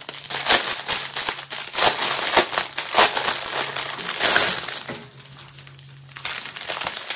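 Plastic wrapping crinkling and crackling as hands squeeze and turn a film-wrapped bundle of bagged round acrylic diamond-painting drills, with a short lull about five seconds in.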